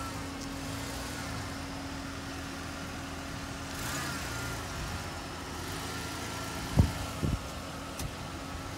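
Car engine running at low speed as the car rolls slowly on a wet driveway, a steady low hum with one held tone. A sharp thump about three-quarters of the way in, the loudest sound, with a smaller one just after.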